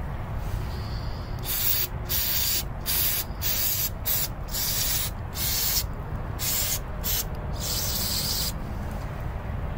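Aerosol carburetor cleaner sprayed through a thin straw into a small-engine carburetor's passages, in about ten short hissing bursts with brief pauses between them, starting a second or so in.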